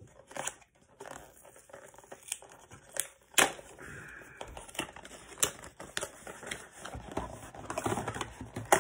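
Small cardboard box being opened and handled: the top peeled open and the contents pulled out, with scattered sharp clicks and taps, the loudest about three and a half seconds in, and a stretch of crinkling and rustling near the end.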